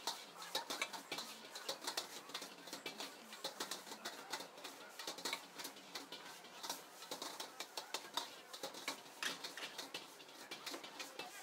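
Metal wok ladle clinking and scraping against the wok in quick, irregular strokes as food is stir-fried, over the steady hiss of sizzling and a high gas flame.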